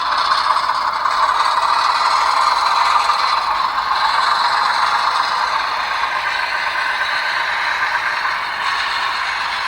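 HO-scale locomotive's TCS diesel sound decoder playing a diesel engine running sound through small iPhone speakers. It steps up in loudness right at the start, is loudest about three seconds in, then eases off a little and holds steady.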